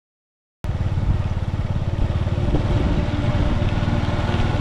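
Small motorcycle engine running steadily while being ridden, a rapid pulsing putter. It cuts in abruptly about half a second in after silence.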